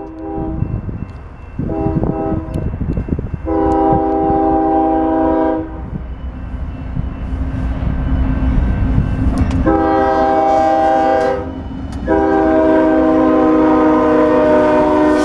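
CSX diesel freight locomotive's multi-chime air horn blowing five blasts, two short ones and then three long ones, at a grade crossing, over the low rumble of the locomotive and train rolling past.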